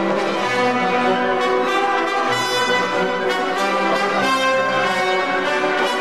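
Music with sustained brass chords that change every second or so.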